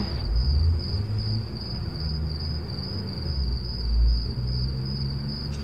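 Crickets chirping in a steady, evenly pulsing high trill, over a low rumbling drone.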